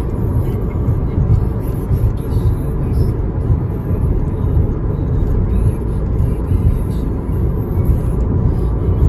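Car travelling at speed, heard from inside the cabin: a steady low rumble of road and engine noise.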